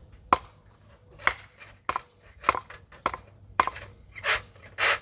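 A series of sharp strikes, about one every half to one second, followed near the end by two longer crunching sounds.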